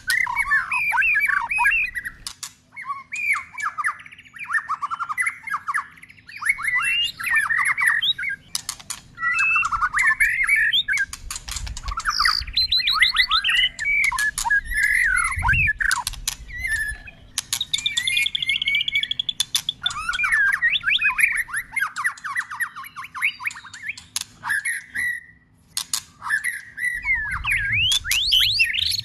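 White-rumped shama singing a long, varied song of quick whistled and warbled phrases that keep switching pitch and pattern, mixed with sharp clicks.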